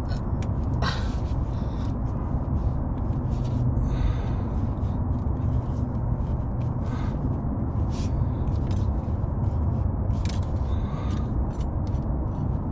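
A steady low rumble, with scattered light clicks and taps of hands working a rubber fuel hose onto a fitting.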